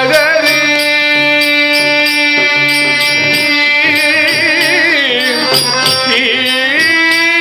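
Carnatic devotional bhajan in raga Kapi: a man's voice sings a long, drawn-out melismatic phrase with held notes and wavering ornaments, over melodic accompaniment and a steady percussion beat.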